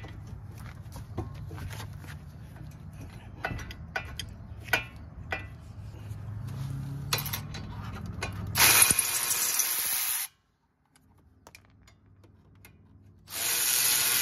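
Cordless electric ratchet spinning out the 17 mm brake caliper bracket bolts in two short steady runs: one about nine seconds in and one near the end. Before them come scattered sharp metal clicks of hand tools on the bolts.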